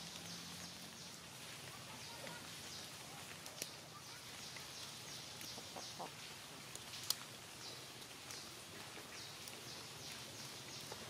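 Faint forest ambience: a steady soft hiss with short, high chirps repeating over and over, and two sharp clicks a few seconds apart.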